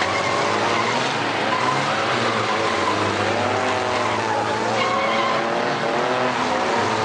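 Several compact pickup truck engines revving hard, their pitch rising and falling, with wheels spinning as the trucks shove against one another.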